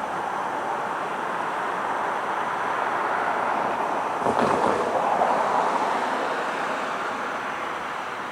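A road vehicle passing over a railroad grade crossing: tyre noise swells and fades, with a low thump about four seconds in as the wheels cross the rails.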